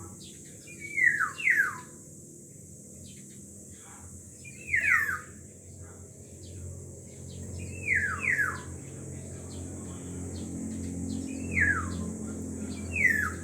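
Black-naped oriole calling: short notes falling in pitch, mostly in quick pairs, repeated every three to four seconds.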